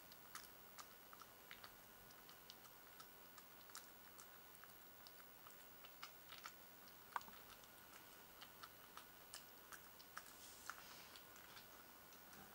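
Faint, irregular wet smacking and clicking of a Northern Inuit puppy eating wet food from a bowl.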